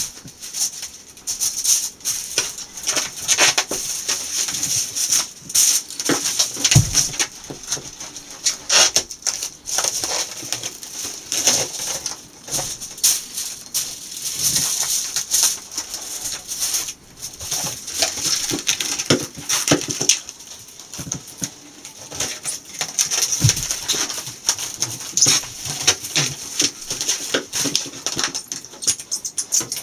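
Aluminium foil crinkling and rustling as it is unrolled, folded over and pressed flat by hand around a wooden beehive follower board, with a couple of dull knocks.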